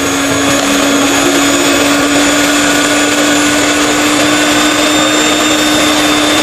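Electric hand mixer running at a steady speed, its beaters whisking egg whites for meringue, with a steady motor hum that does not change.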